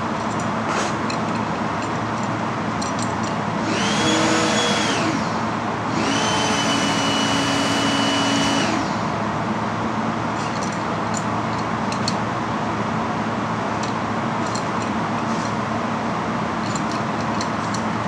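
Steady mechanical hum with a small motor whining at a high, steady pitch twice, once briefly about four seconds in and again for nearly three seconds about six seconds in. Faint metallic clicks, fitting adjustable wrenches working on flare-nut fittings, come and go throughout.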